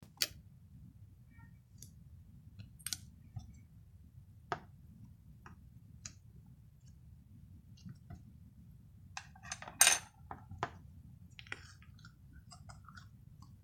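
Whipped-cream slime being played with, giving scattered sticky clicks and small pops, with a louder cluster of crackles about ten seconds in.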